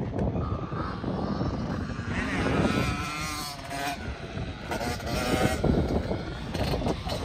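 Yamaha dirt bike engine revving up and easing off as it rides over the track's jumps, under heavy wind rumble on the microphone.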